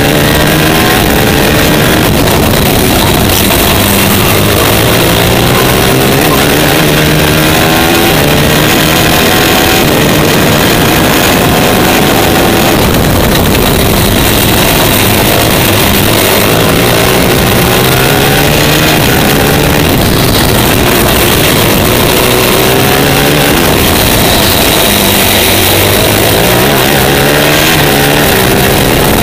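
A superkart's TM 450 four-stroke single-cylinder engine at racing speed, heard from on board, its pitch climbing again and again as it accelerates out of corners. A steady wind rush on the microphone runs under it.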